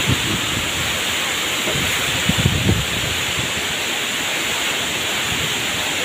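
Heavy rain pouring down in a strong windstorm, a steady rushing hiss, with gusts of wind buffeting the microphone about two to three seconds in.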